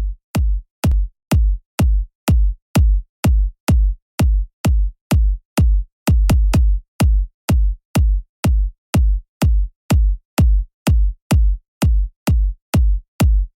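Electronic background music: a drum-machine kick drum on a steady beat, about two hits a second, with a few quick doubled hits.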